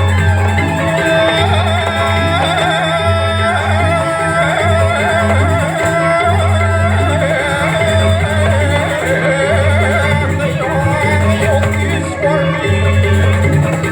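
Balinese gamelan music playing for a joged dance: metallophones with a wavering melody line on top and low booming strokes every second or two.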